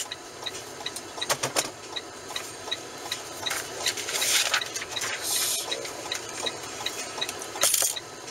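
Steady soft ticking about twice a second inside a truck cab, with bursts of rustling and handling noise about a second in, around the middle and near the end.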